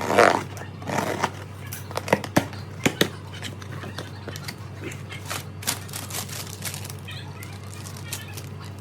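Packaging of an ESR tempered-glass screen protector being handled and opened: rustling bursts at the start and about a second in, then a run of sharp clicks and taps, with smaller handling noises after, over a steady low hum.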